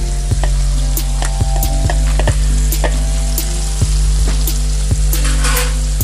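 Freshly added sliced onions, green chillies and curry leaves sizzling in hot oil in an aluminium pressure cooker, with scattered pops and crackles and a brief louder hiss about five seconds in. A steady low hum runs underneath.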